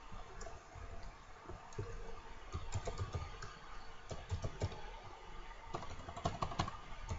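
Typing on a computer keyboard: short, irregular keystroke clicks, with a faint steady hum underneath.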